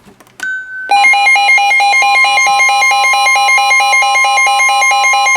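A brief beep, then a NOAA Weather Radio receiver's loud warbling alert alarm of rapidly alternating tones, over the broadcast's steady 1050 Hz warning alarm tone. The tone signals that a warning message is about to be read.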